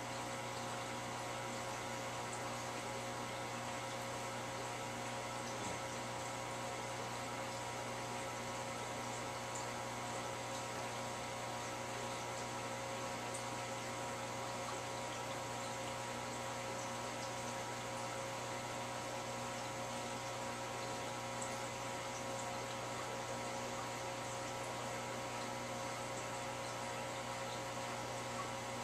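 Steady electrical hum of an aquarium's filter pump, with a faint wash of water beneath it.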